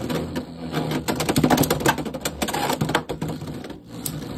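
Two Beyblade X spinning tops, Helm Knight 3-80 Needle and a red opponent, battling in a plastic stadium: a fast, irregular clatter of clicks and knocks as they hit each other and the stadium walls, over a steady spinning hum.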